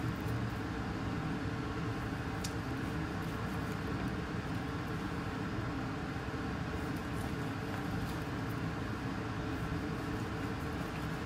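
A steady mechanical hum in the background, with a few faint taps of a kitchen knife against a plastic cutting board as boiled liver is sliced.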